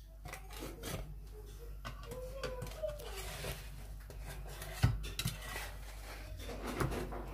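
Light clinks and knocks of kitchenware as a glass baking dish and a ceramic plate are handled, with a sharper knock about five seconds in.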